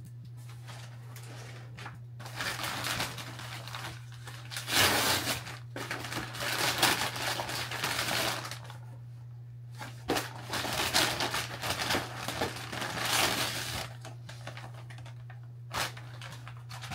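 Paper mailer bag rustling and crinkling in bursts as items are dug out of it, with small cardboard boxes knocking as they are handled, over a steady low hum.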